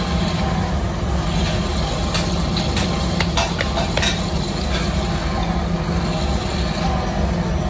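Electric drill press running steadily while its bit drills into a small iron trowel part, with scattered light clicks now and then.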